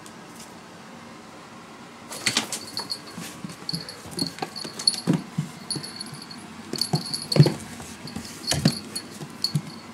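A kitten pouncing and scrambling on a wooden floor at a string toy: irregular thumps and scrabbling taps that start about two seconds in, with repeated short high jingling over them.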